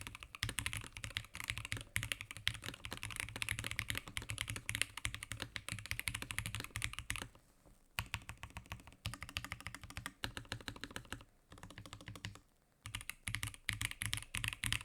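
Typing test on a NovelKeys Classic TKL mechanical keyboard (injection-molded ABS case, Aqua King linear switches, Durock V2 stabilizers, GMK keycaps): a fast, steady run of keystrokes, with two brief pauses about halfway through and again near the end.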